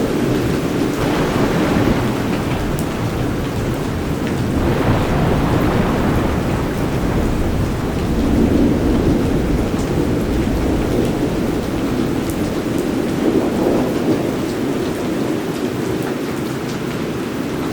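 Steady rain with low, rolling thunder that swells up and dies back about four times.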